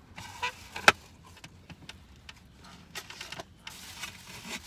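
Handling noise inside a car: one sharp click about a second in, then several lighter clicks and some rustling.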